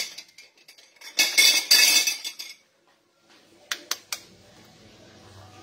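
Kitchenware clattering on a counter: a burst right at the start and a longer stretch of clinking and scraping, followed by three quick light clicks about four seconds in.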